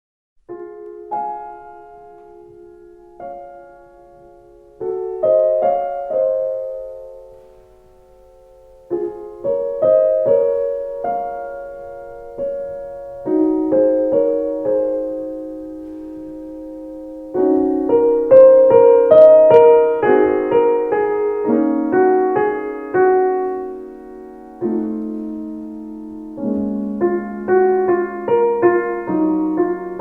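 Background solo piano music: slow, gentle notes left to ring, becoming fuller and louder a little past halfway.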